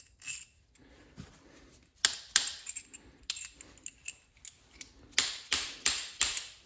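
Sharp metallic clicks and light hammer taps as a new connecting rod bolt is tapped into the connecting rod cap of a Ford 4.6L DOHC engine: two clicks about two seconds in, then a quick run of four or five taps near the end.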